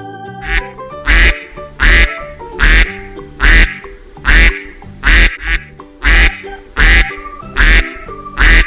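A duck quacking in a regular series, about ten loud quacks a little under a second apart, the first fainter, over background organ music.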